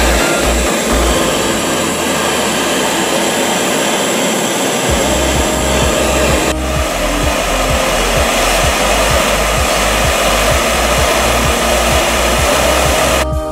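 Handheld gas torch flame hissing steadily as it heats a steel ball, under electronic music with a regular beat.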